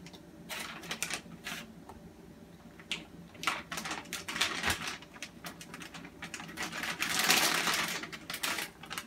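Pineapple chunks tipped from a plastic bag into a NutriBullet blender cup: plastic crinkling and a run of small clicks as the pieces drop into the cup, with a longer stretch of louder bag rustling about seven seconds in.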